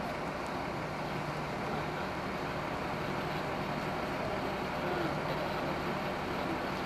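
Steady low hum of an idling vehicle engine, running evenly over a wash of street noise.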